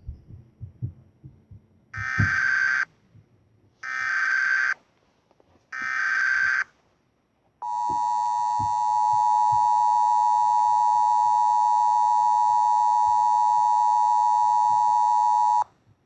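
Emergency Alert System tones: three short bursts of SAME header data, each just under a second, then the two-tone attention signal held steady for about eight seconds before cutting off sharply. They announce an Emergency Action Termination message.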